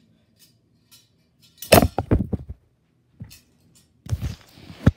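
A run of loud thuds and knocks: several in quick succession about two seconds in, a single one a second later, and another cluster near the end, finishing with a sharp knock.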